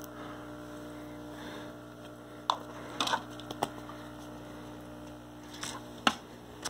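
Steady electrical hum of running aquarium equipment, with a few light clicks and taps scattered through.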